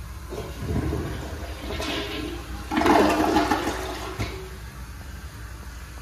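A 2013 Orion dual-flush toilet flushing: water rushes into the bowl and swells to its loudest about three seconds in, then dies away a little after four seconds. It is a flush the uploader rates as not very good.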